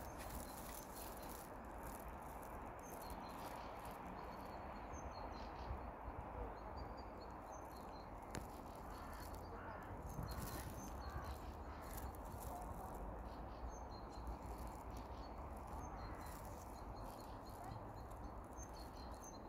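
Faint outdoor ambience: a steady low background hum with scattered faint bird calls.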